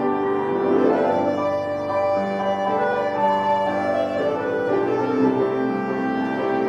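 Instrumental music: held notes and chords on sustained instruments, the pitch moving in slow steps.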